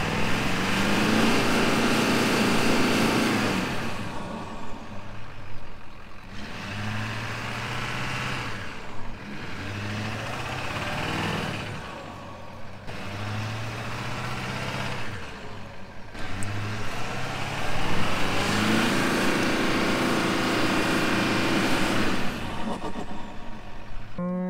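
Pickup truck engine revving hard in about five long surges, rising and falling, while the wheels spin in deep mud trying to break the truck free. The truck is stuck and the spinning does not get it out.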